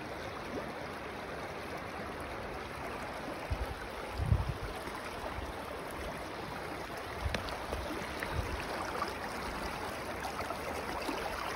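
River water flowing over rocks in the shallows, a steady rush of moving water. A brief low thump comes about four seconds in.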